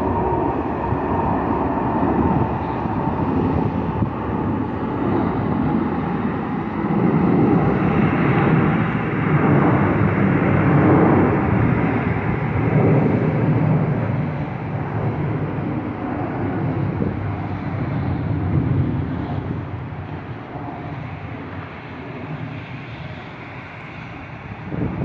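Twin-engine jet airliner passing overhead with its engines running: a steady jet rumble that swells to its loudest around ten seconds in, then slowly fades as the plane moves away.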